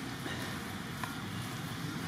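Steady low outdoor background rumble, with a faint click about a second in and a few faint high chirps near the start.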